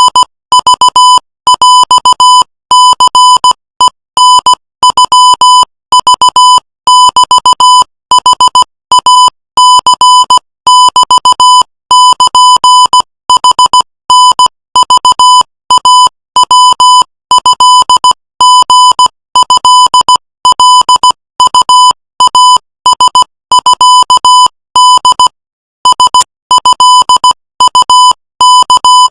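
Morse code at 18 words per minute: a single high, slightly buzzy beep tone keyed on and off in short dots and longer dashes, grouped into letters, with one longer gap between words near the end.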